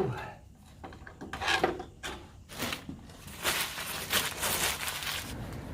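Scraping and rubbing from hands working on metal parts, in several irregular strokes; the longest runs for nearly two seconds near the end.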